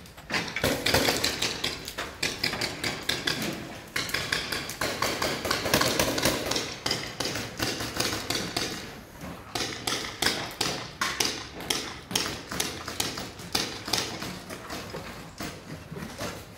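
Footsteps crunching and clinking over loose rubble and broken corrugated sheets, a dense, uneven run of knocks and taps.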